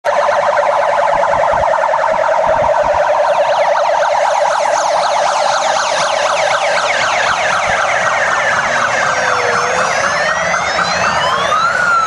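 Police escort sirens: a fast, yelping warble throughout, joined about two-thirds of the way in by a slower wail that rises to a peak near the end and then falls.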